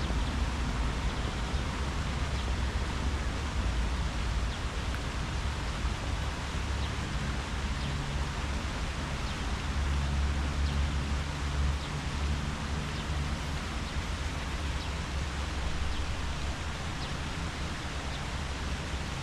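Wind rustling through tree leaves as a steady hiss, with a low wind rumble underneath and a few faint, short high ticks.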